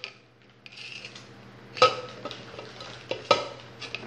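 Dry cake mix poured from its bag into a plastic sieve over a plastic bowl, with a soft rustling and hiss, then two sharp plastic knocks as the sieve is handled against the bowl, about a second and a half apart.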